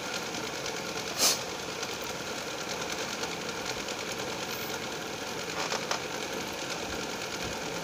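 A steady machine hum runs throughout. A single sharp click comes about a second in, and there are faint scratches from a marker tip starting to write near the end.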